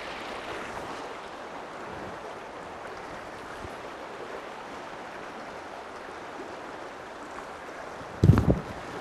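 Steady rush of a shallow river running over riffles, with a brief loud low thump about eight seconds in.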